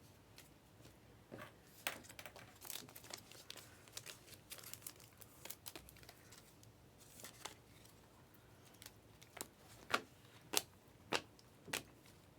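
A Panini Mosaic Fast Break trading-card pack wrapper being torn open and crinkled, with cards handled. Near the end comes a run of sharp clicks, about two a second.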